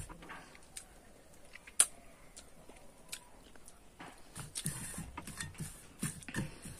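Someone eating by hand from a metal plate: fingers working the food on the plate with small clicks and scrapes, and chewing. There is one sharp click about two seconds in.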